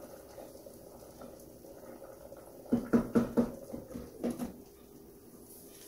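Cookware clatter: a wooden spoon and a glass pot lid knocking on a stainless steel cooking pot, a quick run of about five clanks with a brief ring about three seconds in and one more knock a second later, as the lid is set back on the pot. Before that, only quiet stirring of the pot.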